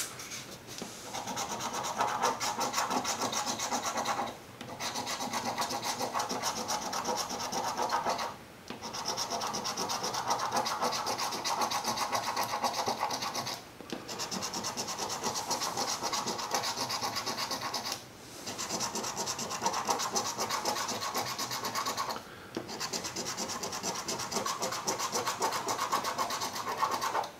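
Coin scraping the latex coating off a scratch-off lottery ticket: rapid back-and-forth strokes in runs of about four seconds, broken by five short pauses.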